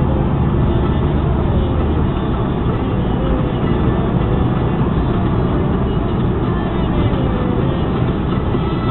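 Steady road and engine noise heard inside a moving Jaguar X-Type's cabin: a continuous low rumble of tyres and engine, with faint tones that slowly rise and fall.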